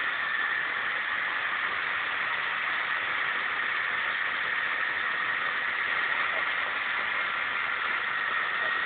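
Small vehicle's engine held at steady revs while its tyre spins on paving stones in a smoky burnout: a steady noisy drone with a faint thin high tone, unchanging throughout.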